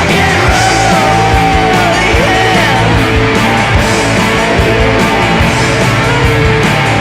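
Loud rock music with a steady drum beat, electric guitars and a singing voice.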